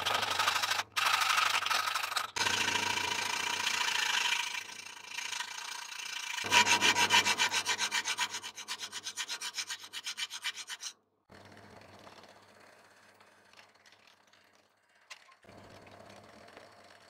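A round hand file rasping across the edge of a spring-steel knife blade clamped in a vise, in quick back-and-forth strokes of about four a second. About eleven seconds in it cuts off, and a much fainter drill press is heard boring holes through the steel.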